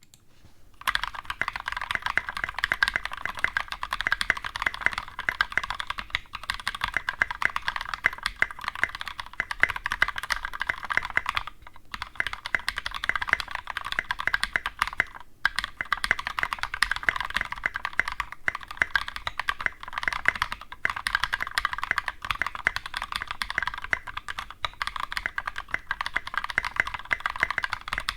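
Continuous fast typing on a KBD Tofu mechanical keyboard with a brass plate, SA profile keycaps and NovelKeys Cream linear switches that are lubed with Krytox 205g0 and filmed. It is a dense run of keystrokes that starts about a second in, broken only by a few short pauses.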